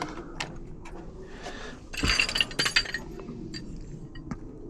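Small metal clicks and a brief clinking rattle about two seconds in, from tools and lock hardware being worked on a jammed uPVC door lock.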